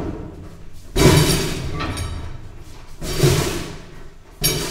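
A workbench being wheeled across a concrete floor on a hand truck: three loud thuds with scraping, about a second in, around three seconds and again near the end.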